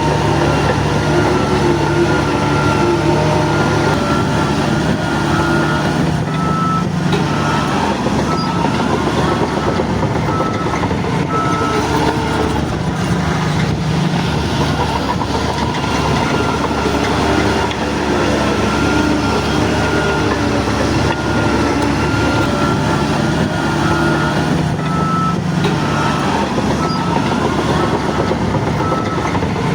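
Heavy diesel engine of a bulldozer running steadily under work, with a reversing alarm beeping in two spells, about a beep a second.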